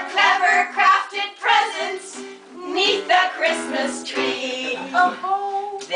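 Three women singing a song together to acoustic guitar accompaniment, with a brief break between sung lines about two seconds in.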